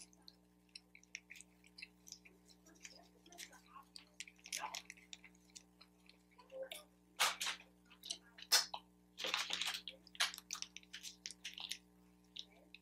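Close-miked eating sounds: wet chewing and mouth clicks on General Tso's chicken and fried rice, with a fork tapping and scraping in a plastic takeout tray. The louder clicks bunch up a little past halfway, over a faint steady hum.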